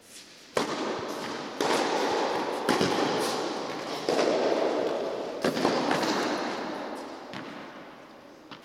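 Tennis ball struck by rackets in an indoor hall: a serve and then a rally of sharp hits about every second or so, each followed by a long booming echo. The echo fades away after the last hit.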